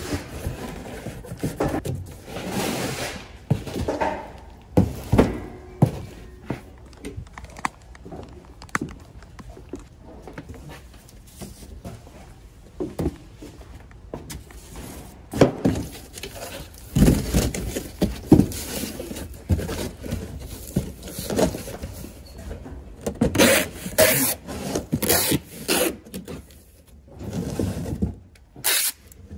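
Cardboard boxes being carried, set down and stacked: irregular thunks, scrapes and rustling of cardboard, sharper and busier near the end.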